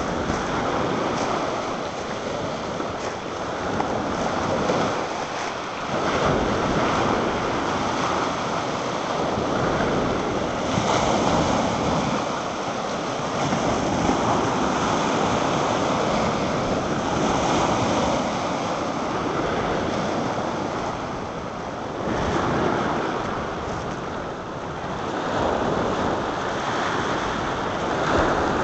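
Rough sea surf breaking and washing up a pebble beach: a continuous rushing wash that swells every few seconds as each wave comes in.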